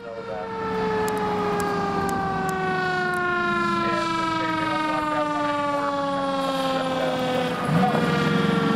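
Fire engine siren sounding one long wail that falls slowly and steadily in pitch, over the steady hum of the truck's engine. Near the end a new rising siren tone starts and the sound gets louder as the engine comes close.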